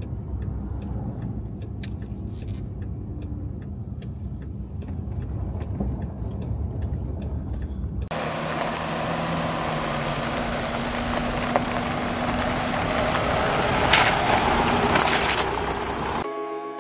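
A car driving: a steady low engine and road rumble with faint, regular ticking, heard from inside the cabin. About halfway through it changes abruptly to a louder, hissing rush of road noise over the engine.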